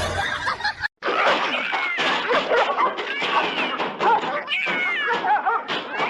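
Cats meowing: many short, high-pitched meows overlapping one another, starting after a brief break about a second in.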